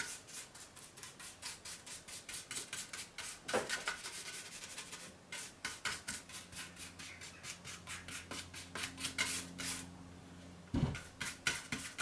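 Paintbrush strokes working thick rubberized roof sealer over a 3D-printed ABS plastic shell: a steady run of short swishes, several a second. A faint low hum joins about halfway through, and a soft thump comes near the end.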